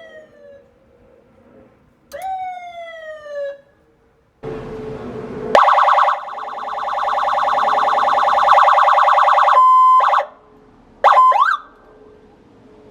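Electronic police siren from a 100-watt HornBlasters PA siren unit, run through several siren tones in short bursts. A falling sweep about two seconds in is followed by a loud, rapidly pulsing wail lasting about four seconds, a brief steady tone, and quick rising chirps near the end.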